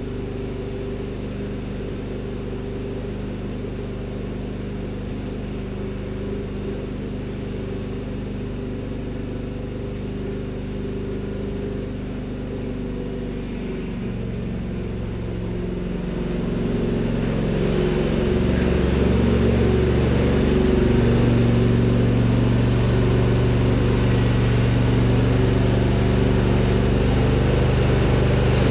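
John Deere D170 lawn tractor's V-twin engine running steadily. Partway through, its pitch shifts, then it speeds up and gets louder and holds there, as the tractor is test-driven with its hydrostatic drive belt back on.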